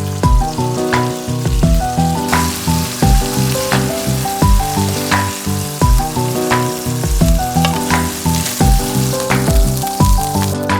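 Background music with a steady beat over food sizzling as it fries in a pan; the sizzle comes in strongly about two seconds in.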